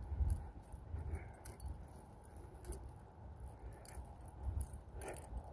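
Footsteps and phone-handling noise from someone walking across a lawn while filming: an uneven low rumble with scattered faint clicks.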